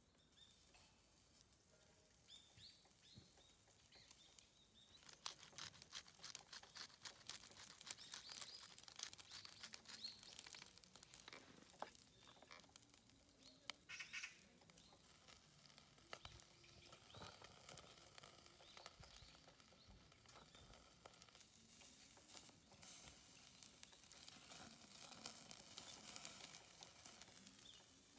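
Faint sizzling and crackling of meat grilling on a wire grill over a small wood gas stove, starting about five seconds in.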